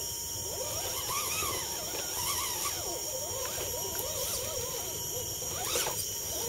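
Electric motor and gears of a scale RC Land Rover Defender D90 crawler whining, the pitch rising and falling quickly as the throttle is worked over rocks. A steady high whine runs behind it, and there is a short sharp click near the end.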